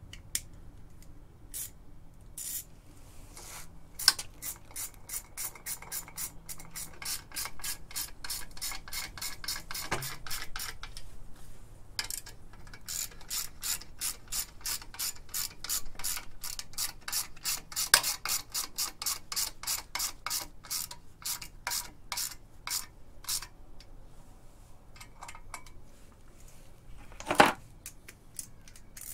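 Husky quarter-inch ratchet with a 12-point socket clicking in rapid, even runs as the clutch pressure plate bolts are run down onto the flywheel. Near the end there is a single louder clank.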